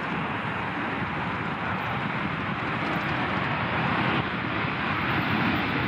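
Boeing 737-800's CFM56 jet engines running as the airliner rolls out along the runway after landing, a steady rush that grows slowly louder as it comes closer.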